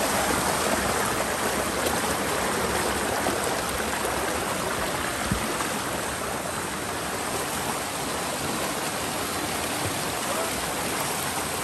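Stream water flowing: a steady, unbroken rush of water.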